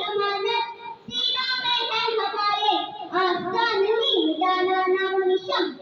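A young boy singing a patriotic Urdu song, holding long, drawn-out notes with short breaks between phrases.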